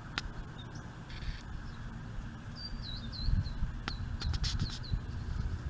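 Small birds chirping: a quick run of short, hooked chirps through the middle, with a few sharp clicks among them, over a low rumble.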